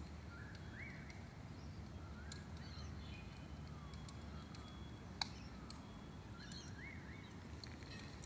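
Faint outdoor ambience: a low steady rumble with a few short rising bird chirps, about a second in, around two seconds and again near seven seconds, and a single sharp click about five seconds in.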